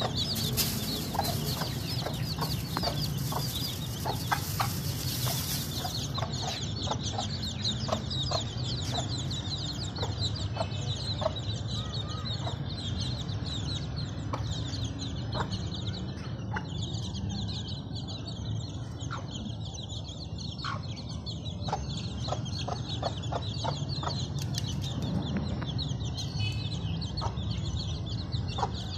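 A hen clucking in short repeated calls while her chicks peep high and continuously around her.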